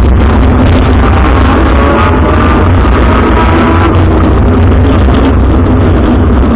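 Rally car's engine running hard at high revs, heard very loud from inside the stripped cabin, its pitch rising as it pulls through a gear.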